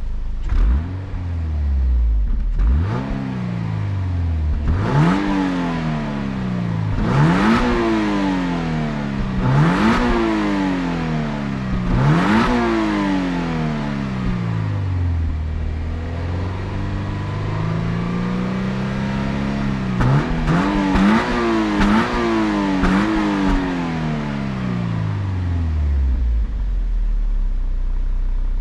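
A 2023 Toyota GR86's 2.4-litre flat-four engine accelerating hard: the engine note climbs in about five rising sweeps, each dropping off sharply at a gear change. It then winds down and holds a steadier note, rises in a few short quick revs, and settles back low near the end.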